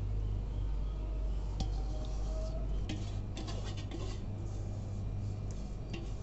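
Light clinks and scrapes of a metal bowl against a metal pot as thick spice marinade is emptied over a leg of mutton. The clicks cluster about three to four seconds in, over a steady low hum.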